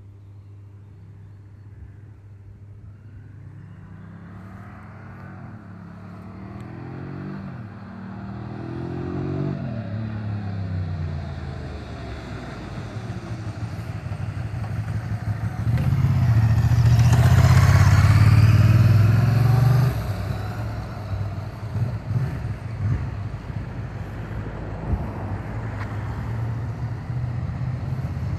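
1998 Ducati ST2's 944 cc V-twin engine approaching from a distance, its pitch rising and dropping several times as it is taken up through the gears. It is loudest as the bike passes close by, about two-thirds of the way through, then drops away quickly.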